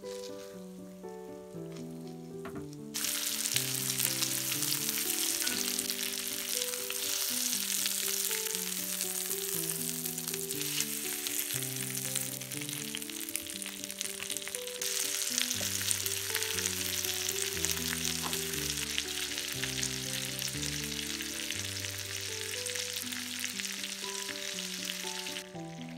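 Flour-dredged chicken breasts frying in butter in a pan: a steady sizzle that jumps much louder about three seconds in and drops away just before the end. Soft background music with a slow melody plays throughout.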